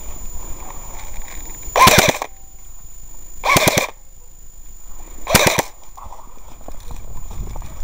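Airsoft gun firing three short bursts of rapid fire, about two seconds apart.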